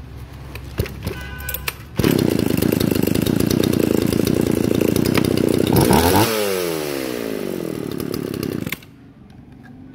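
Shindaiwa chainsaw's two-stroke engine pull-started: after a couple of clicks it catches about two seconds in and runs loud and fast, the revs fall away after about six seconds, and it cuts off suddenly near the end.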